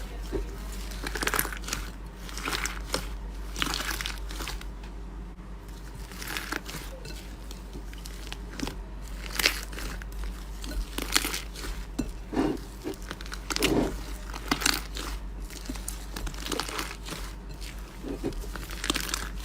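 Slime being squeezed and pressed by hand, giving irregular crackling crunches roughly once a second over a low steady hum.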